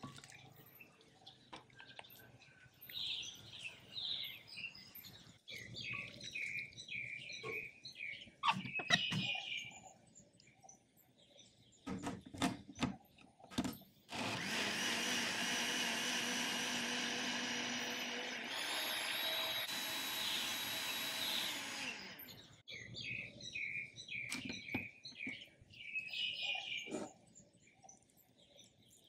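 Countertop blender puréeing cooked zucchini and celery soup in a glass jar for about eight seconds, starting about halfway through; its pitch shifts partway through the run. Before it, a few clunks as the soup is ladled into the jar, and birds chirping before and after the blending.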